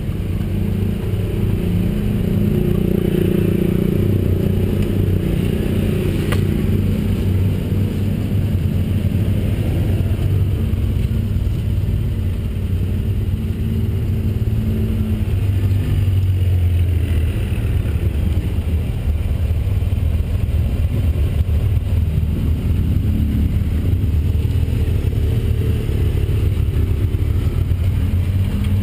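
Motorcycle engine running under way, steady and loud, its pitch rising and falling now and then with the throttle.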